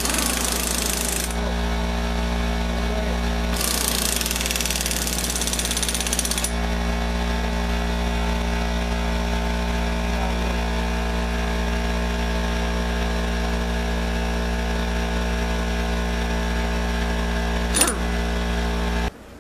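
Impact wrench hammering a nut tight on a Dana Model 18 transfer case in two bursts: a short one of about a second at the start, then a longer one of about three seconds. A steady hum runs underneath, and there is a single sharp click near the end.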